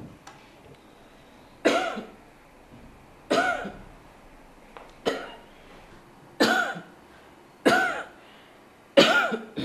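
A woman giving single, deliberate coughs on request, six in a row, each about a second and a half after the last, recorded for a tuberculosis cough-screening test.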